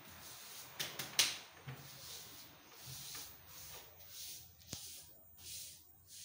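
A hand rubbing and smoothing wallpaper flat against a wall: a few sharp clicks of the paper about a second in, then a run of soft swishing strokes about twice a second.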